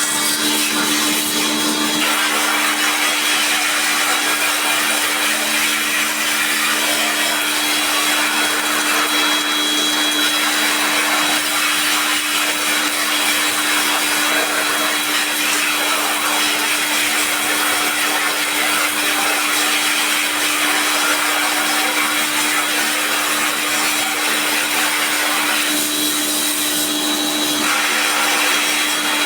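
A small electric motor running steadily with a strong, even hiss and a constant hum.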